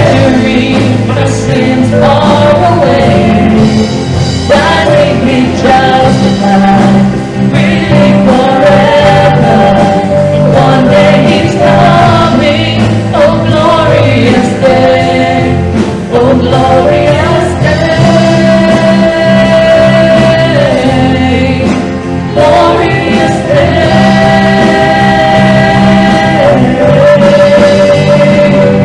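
Worship music: a band playing a song with voices singing long held notes over a steady bass.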